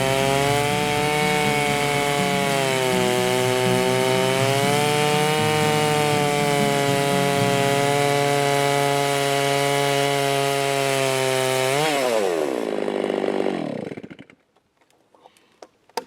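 Chainsaw running at full throttle on a TimberJig chainsaw mill, ripping a log lengthwise into boards, its pitch sagging slightly under the load of the cut. About twelve seconds in it revs up briefly, then winds down and stops.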